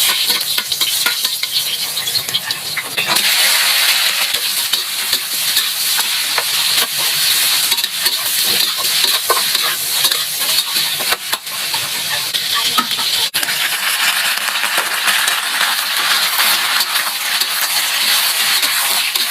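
Food sizzling as it fries in a hot pan, stirred with a utensil that clicks and scrapes against the pan. The sizzle grows louder about three seconds in.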